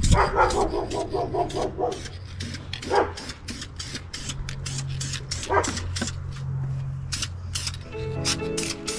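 Short hisses of an aerosol spray-paint can being sprayed onto a steel wheel. A dog yips rapidly at the start and gives two rising barks. Music comes in near the end.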